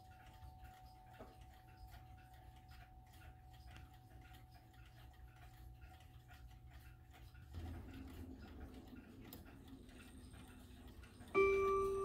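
Howard Miller Arlington Hills mantel clock's mechanical movement ticking steadily and faintly, with a soft knock about seven and a half seconds in. Near the end, the clock's chime rods start to ring loudly.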